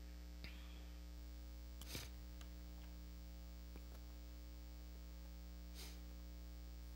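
Steady electrical mains hum through the pulpit microphone's sound system, with a few faint short noises, the clearest about two seconds in and another near the end.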